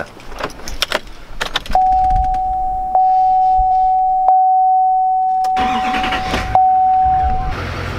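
Clicks and knocks of getting into a pickup cab, then a steady electronic warning chime held on one note. Under the chime, the L5P Duramax 6.6-litre V8 turbodiesel cranks for about a second on its starter and catches into a low idle.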